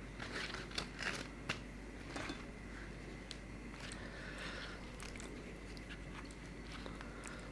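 Thin rumali roti rustling and crackling as it is folded and torn by hand. A few sharp crackles come in the first two seconds, then fainter handling as a piece is pressed into the curry.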